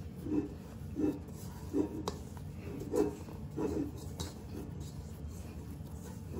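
Hands punching down and kneading risen whole-wheat bread dough in a stainless steel bowl to degas it after its rise: soft, dull squishes and thumps about once a second, dying away over the last couple of seconds.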